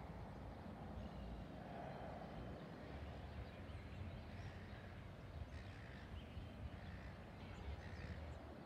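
Quiet outdoor ambience: a low steady rumble of wind on the microphone, with faint short bird calls, more of them in the second half.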